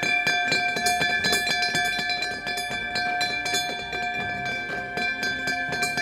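A small ceremonial bell struck rapidly and irregularly with several wooden gavels, ringing on in steady overlapping tones: the closing bell of a stock exchange being rung.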